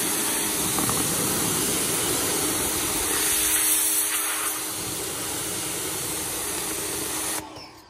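Pressure washer wand spraying water onto the pleated fabric grids of a DE pool filter: a loud, steady hiss of spray with a faint hum under it, cutting off suddenly just before the end.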